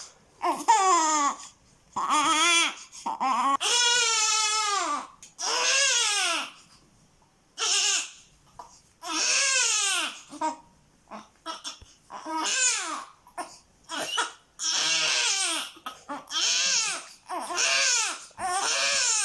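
Newborn baby crying: a run of wails, each rising then falling in pitch, broken by short gaps for breath. There is a brief lull about seven seconds in, and a few short cries around eleven seconds before the full wailing resumes.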